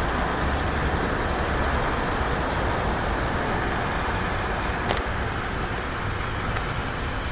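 Steady car noise: an even rushing hum, with a single faint click about five seconds in.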